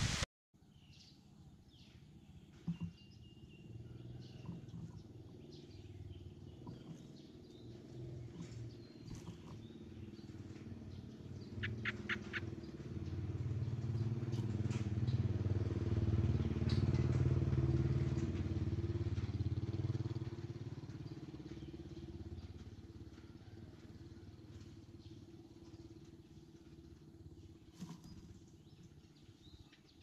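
A motor vehicle's engine passing by: a low drone that builds to its loudest around the middle and then fades away. A few short bird chirps sound over it, including a quick triple note.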